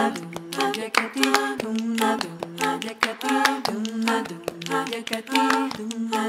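Female a cappella group singing sustained close harmonies over a steady rhythm of hand claps.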